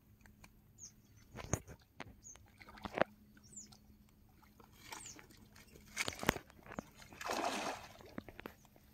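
A hooked rohu splashing at the water's surface while it is played on the rod, with one longer splash about seven seconds in. Scattered sharp knocks and a few short, high, falling bird chirps sound around it.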